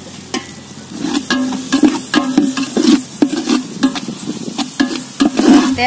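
Long metal ladle stirring thick chicken gravy in a large metal cooking pot, scraping and clinking against the pot, starting about a second in.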